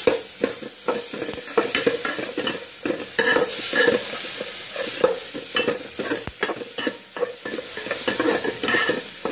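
Metal spoon stirring onions, mustard seeds, curry leaves and dried red chillies frying in oil in a metal pot: irregular scrapes and knocks of the spoon against the pot over a steady sizzle.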